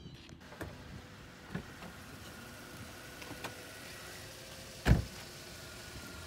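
A car running steadily in the background, with a few light clicks and knocks and one loud, sharp knock about five seconds in.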